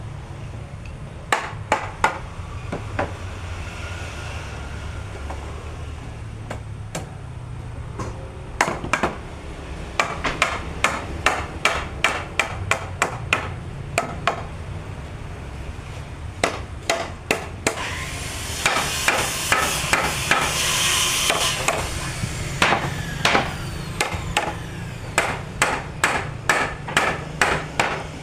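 Hammer blows on wood while a wooden door frame is being assembled, struck in runs of about two to three blows a second with short pauses between runs. A rasping hiss joins in briefly around two-thirds of the way through, over a steady low hum.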